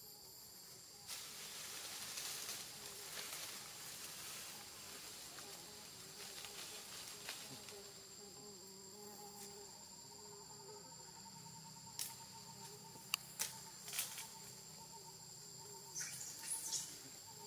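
A steady, high-pitched insect chorus drones throughout. A few seconds of rustling hiss come early. Several sharp clicks and knocks follow in the last third.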